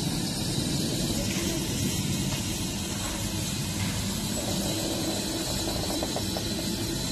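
Steady low rumble and hiss of two steam locomotives standing in steam, an Ivatt tank engine and a Black Five, with a few light metallic clicks about two-thirds of the way through.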